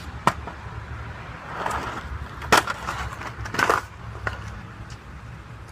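RipStik caster board dropped and stomped onto pavement, then clattering in a wipeout: a sharp smack just after the start, a louder one about two and a half seconds in, a short rattling clatter about a second later, and a last knock.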